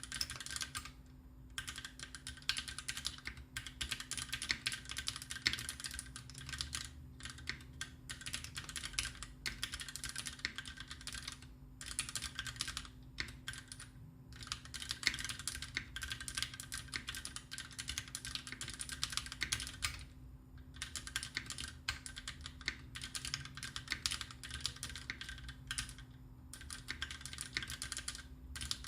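Continuous fast typing on a custom tenkeyless mechanical keyboard with lubricated Greetech Black linear switches, 70 g springs and Cherry-profile GMK keycaps, broken by a few brief pauses.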